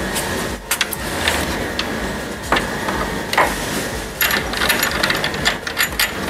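Light metal clicks and knocks of hands seating the new heating element's steel flange and fittings on an electric water heater, over a steady background hum.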